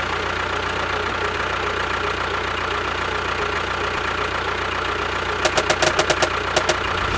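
The motor of a DIY mini tractor running steadily at one pitch, just after starting, with a quick run of sharp clicks about five and a half seconds in.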